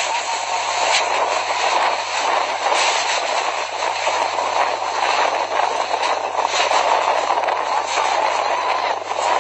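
Whirlwind (tornado) roaring at close range: a loud, steady rush of wind and blowing debris, with a few sharp knocks.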